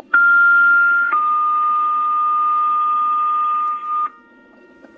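Fire department two-tone paging alert sent over a radio: a steady higher tone for about a second, then a slightly lower tone held about three seconds, cutting off near the end, the tone-out that sets off the firefighters' pagers ahead of a dispatch.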